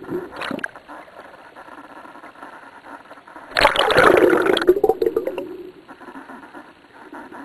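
Bubbling underwater over a steady low hum. A short burst comes right at the start, and a loud one comes about three and a half seconds in and lasts over a second.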